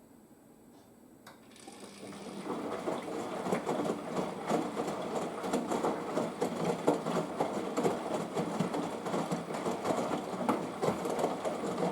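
Washing machine draining after a rinse: the drain pump starts up about a second and a half in and runs steadily with a fast, uneven rattle as the water is pumped out.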